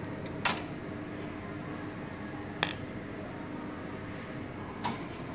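Three sharp clicks from an electronic power test rig, evenly spaced about two seconds apart, over a steady low electrical hum.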